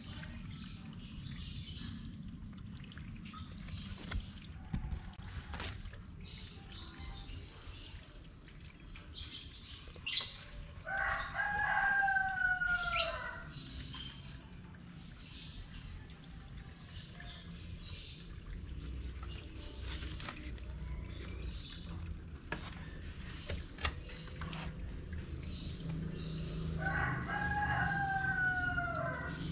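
A rooster crows twice, a long call each time that falls a little in pitch at the end, about a third of the way in and again near the end. Short high bird chirps come just before and after the first crow, over a steady patter of rain with scattered drips.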